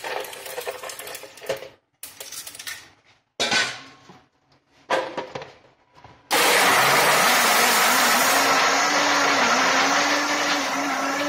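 Ideamay heavy-duty commercial blender with ice cubes in the jar: a few short clatters and knocks as the jar is handled, then about six seconds in the motor switches on and runs loudly, crushing the ice, its pitch dipping briefly now and then under the load.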